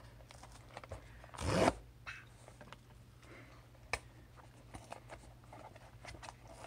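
Packing tape ripped off a small cardboard box in one short rasping pull about a second and a half in, followed by faint clicks and rustles of cardboard as the flap is worked open.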